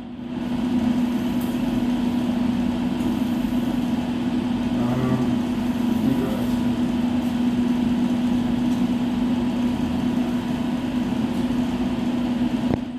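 Floor grinder for terrazzo running steadily, a constant motor hum with no change in speed.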